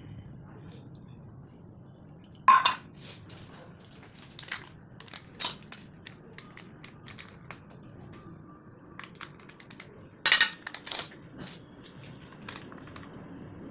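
Scattered clinks and knocks of kitchen utensils and cookware, with the loudest strikes about two and a half seconds in and a quick cluster around ten seconds in.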